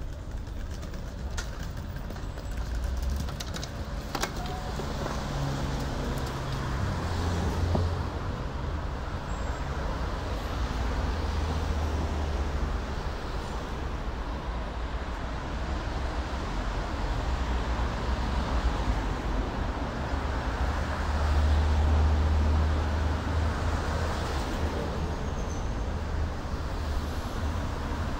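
Steady city road traffic: cars driving past on a busy boulevard with a constant low engine and tyre rumble. It swells louder twice, about a quarter and about three quarters of the way through, as vehicles pass close by.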